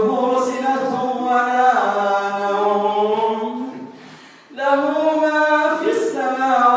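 A man's voice chanting Quranic recitation in prayer, in melodic, drawn-out phrases with long held notes. It breaks off about four seconds in and resumes half a second later.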